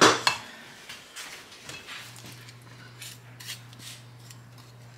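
A silicone spatula and a wooden spoon knocking and scraping against a stainless steel mixing bowl while stirring thick banana muffin batter. There are a few loud knocks right at the start, then lighter scattered taps and scrapes.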